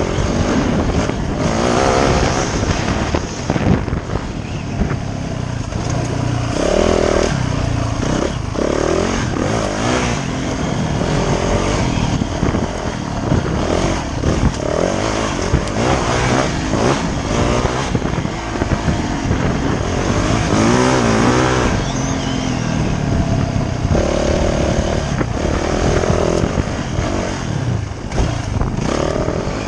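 Dirt bike engine being ridden, its pitch rising and falling again and again as the throttle is worked.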